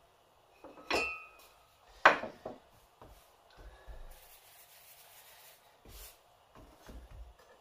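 Kitchen utensils handled on a worktop: a clink with a short ring about a second in, a sharp knock, the loudest, about two seconds in, then soft rubbing and a few light thumps.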